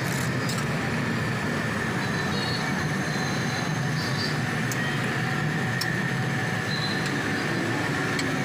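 Steady mechanical drone with a faint high whine, and a few light metallic ticks of a steel spatula on a large flat dosa griddle.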